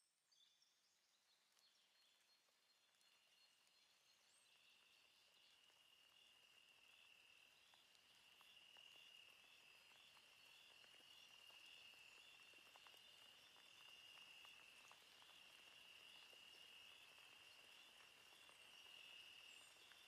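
Faint insect chirring: a steady high trill with a soft, even pulse, fading in over the first few seconds and then holding steady.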